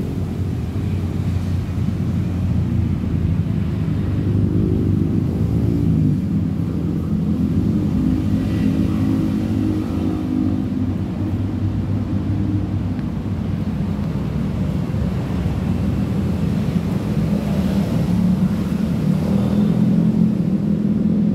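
A steady, low engine hum that runs unbroken, with a slightly drifting pitch.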